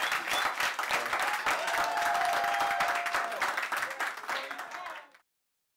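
Small audience clapping and applauding, which cuts off abruptly about five seconds in.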